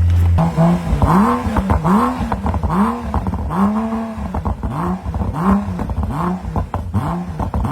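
BMW car engine revved in quick repeated blips, its pitch rising and falling about twice a second, now running after a no-start fault traced to a loose electrical contact.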